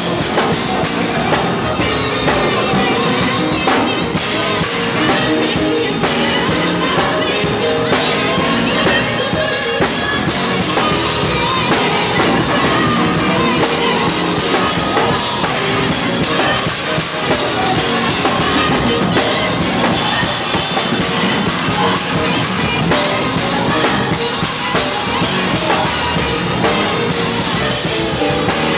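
Live band playing loud and without a break: a drum kit played hard with heavy cymbal work, over bass and organ.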